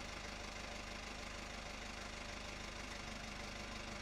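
A steady, low mechanical hum with a fast, even pulse, like a machine running at a constant speed.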